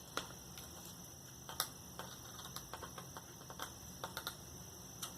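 Faint, irregular small clicks and ticks of a screwdriver working a tiny screen-mounting screw out of a laptop's display assembly, with the loudest click about a second and a half in and quick runs of ticks later on.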